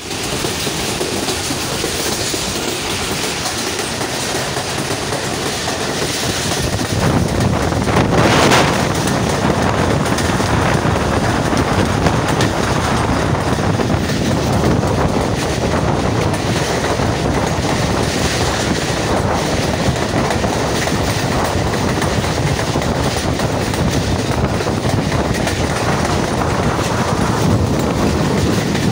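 A passenger train running at speed, heard from an open coach door: wheels clattering over the rails and air rushing past. It grows louder about seven seconds in, with a brief louder rush a second later.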